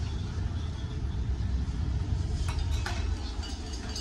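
A few short clinks of a metal ladle and bowls at a noodle stall, a little past halfway, over a steady low rumble.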